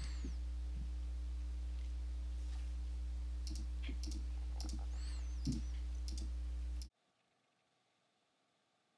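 A handful of soft computer mouse clicks over a steady low electrical hum, then dead silence from about seven seconds in.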